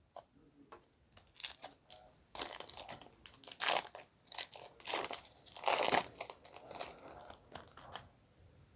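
A trading-card pack's wrapper being torn open and crinkled, irregular crackling that stops about eight seconds in.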